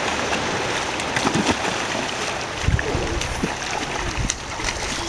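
Feet splashing and sloshing through shallow seawater, with scattered small splashes and a couple of duller thumps of water, over a steady wash of water noise.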